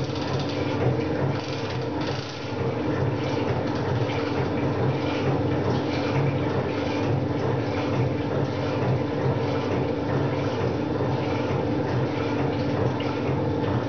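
Small metal shaper running: motor and gear hum with the ram stroking back and forth in a steady, repeating rhythm.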